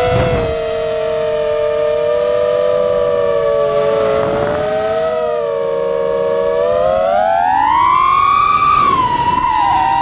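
FPV quadcopter's brushless motors and propellers whining. The pitch slides with the throttle, holding fairly steady and then climbing from about seven seconds in. There are short rushes of air noise near the start and around the middle.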